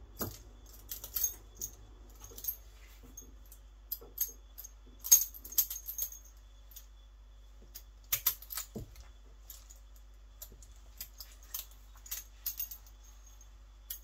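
Vintage Peerless handcuffs and a steel waist chain clinking and jangling in short, irregular bursts as the cuffed hands move, loudest about five seconds in.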